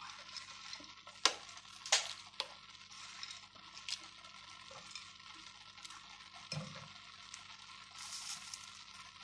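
A spatula stirring in a pan of sweet rice, with a few sharp clicks and taps as it works and nuts and raisins go in, over a faint sizzle of the sugar syrup cooking.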